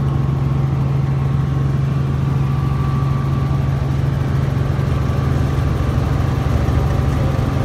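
Light helicopter's engine and rotor drone heard inside the cabin in steady cruising flight: an even, unbroken low hum with fainter steady tones above it.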